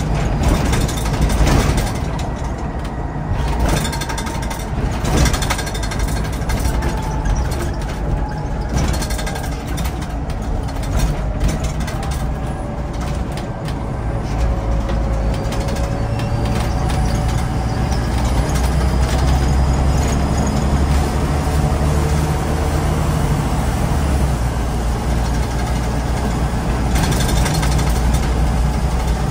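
Scania N94UD OmniDekka double-decker bus's five-cylinder diesel engine running under load, with clicks and rattles over the first several seconds. The engine grows louder about halfway through as it pulls harder.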